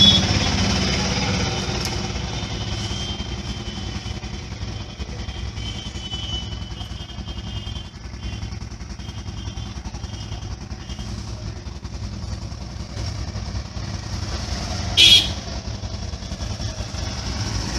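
Steady street traffic noise: motor vehicles and motorcycles running, with one short, loud, high-pitched sound about fifteen seconds in.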